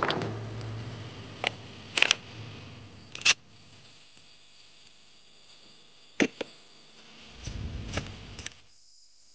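Sharp metal clicks and clacks from the action of a 1930 Western Field takedown 20-gauge pump shotgun as it is handled and put back together. The clicks come a few at a time: several in the first few seconds, two close together about six seconds in, and a sliding rattle with clicks around eight seconds.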